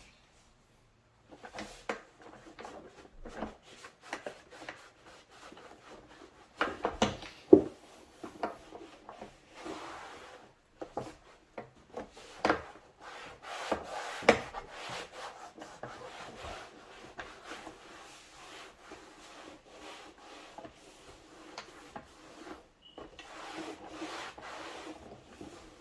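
Hand work on a BMW E36 door card: irregular rubbing and scraping on the panel, with scattered sharp knocks and clicks, the loudest knock about seven seconds in.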